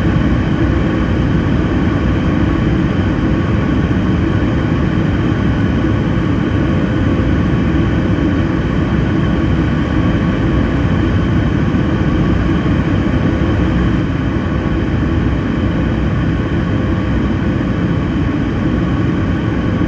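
Steady cabin noise of a Boeing 737 MAX 9 climbing after takeoff, heard from a seat over the wing: a deep roar from its CFM LEAP-1B engines and the airflow, with a few faint steady tones running through it.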